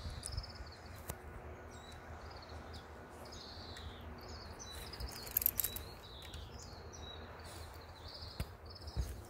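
Small birds chirping over and over in short, high trills above a steady low rumble. A few knocks and scuffs come about halfway through and again near the end.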